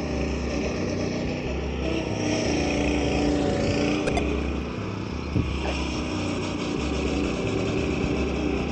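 Background beat-driven music with a deep, repeating bass line, plus a single short click about five seconds in.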